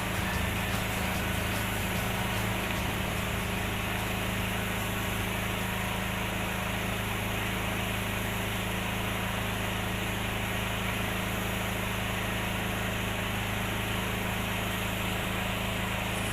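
A small engine running steadily at constant speed, with a steady hiss over it.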